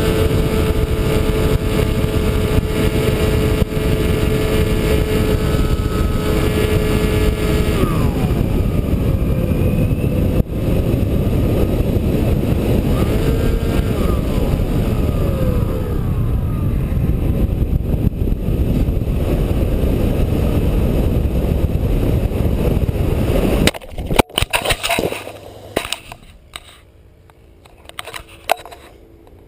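Skywalker model plane's electric motor running with a steady whine over heavy wind rush, its pitch sliding up and down after several seconds. A little before the end the noise cuts off abruptly with a few sharp clatters, the high-speed crash, followed by a much quieter stretch with scattered clicks.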